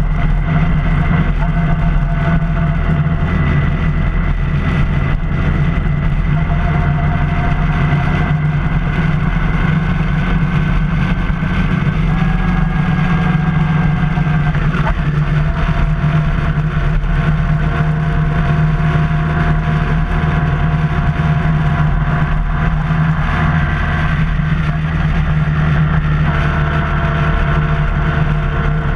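Motorcycle engine running at a steady road cruise, heard through a bike-mounted camera together with a constant rush of wind and road noise. The engine note shifts a little about halfway through.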